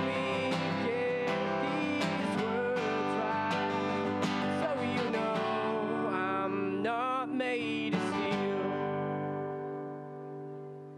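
A man singing to a strummed acoustic guitar. About eight or nine seconds in, the song reaches its last chord, which rings on and fades.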